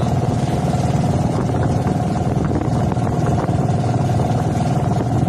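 Small fishing boat's engine running steadily at constant speed: an even drone with a steady whine on top.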